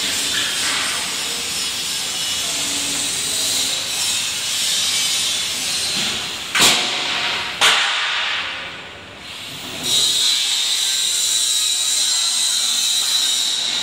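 Welding-shop noise: a steady hiss broken by two sharp knocks about a second apart a little past the middle, then a brief lull, after which the hiss comes back with a steady high whine.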